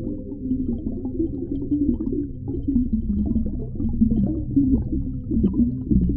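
Underwater ambience: a steady low rumble with muffled, wavering gurgles and moans drifting up and down in pitch.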